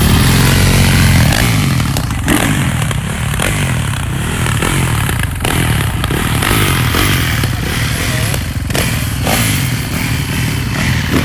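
Dirt bike engines running close by, their pitch rising and falling as they rev; loudest in the first second or so.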